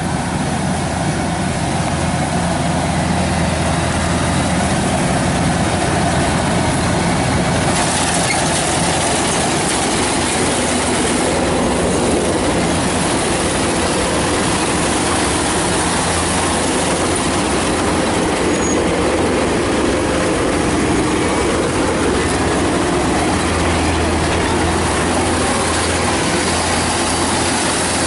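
Kubota DC-105X combine harvester running while harvesting rice: a steady diesel engine drone under a dense mechanical clatter and rush, which grows brighter about eight seconds in.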